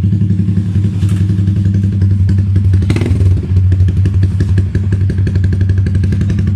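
Yamaha Sniper 150's single-cylinder four-stroke engine idling steadily through an HGM aftermarket exhaust pipe, an even, deep exhaust note. A short click about three seconds in.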